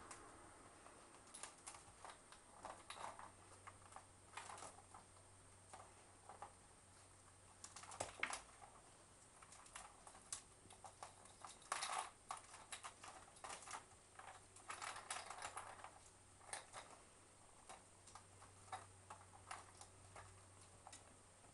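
A small kitten scrambling and playing in and around a wicker basket of toys on carpet. The sound is faint, irregular clicks, taps and scratchy rustles, with a couple of louder knocks about eight and twelve seconds in.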